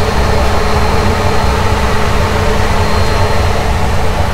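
Steady, loud drone of machinery running in a motor yacht's engine room: a low rumble with steady hums and a faint high whine, unchanging throughout.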